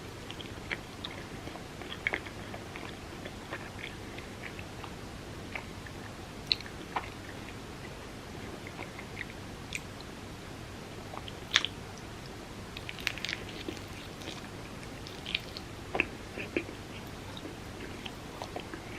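A person chewing food close to the microphone: wet mouth clicks and small crunches scattered through, with a few louder ones near the middle and about three quarters of the way through.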